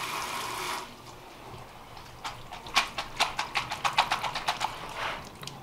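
Running tap water stops less than a second in. About two seconds in, a quick run of light, sharp clicks and taps follows, roughly five a second for about two and a half seconds.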